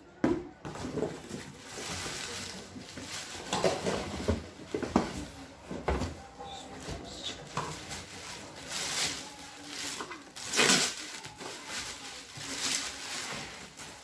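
Plastic wrapping rustling and crinkling as it is pulled off a vacuum cleaner, with a few sharper crackles and handling knocks along the way.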